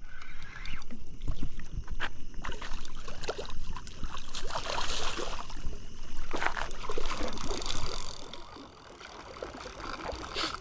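Water splashing and churning as a hooked gar thrashes at the surface near the bank while it is reeled in. It is busiest for about eight seconds, then eases off.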